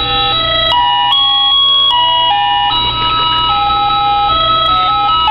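1997 First-brand Hello Kitty alarm clock's electronic alarm playing its melody: a simple beeping tune of clean stepped tones, two notes at a time, with a long held upper note through the second half.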